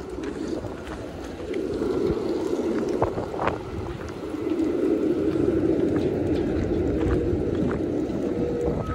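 City street noise: a low rumble of passing traffic that swells twice, with scattered short clicks.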